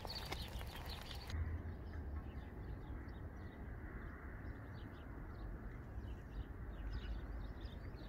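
Footsteps on a dirt track for about the first second. After that, small birds chirp faintly and repeatedly over a steady low rumble.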